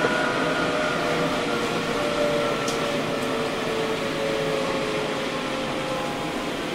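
Sendai Subway 1000N-series electric train running, heard from inside the car: a steady rumble with a motor whine of several tones that slowly falls in pitch as the train slows.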